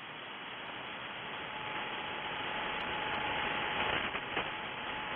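Shortwave receiver hiss from an SSB amateur radio transceiver listening on an open band, growing slowly louder, with a faint steady whistle of a carrier coming in about one and a half seconds in.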